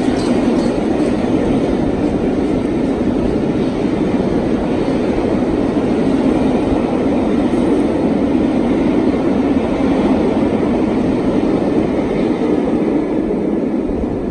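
Steam-hauled passenger coaches rolling past at speed close by: a steady rumble of wheels on the rails, fading slightly near the end as the train draws away.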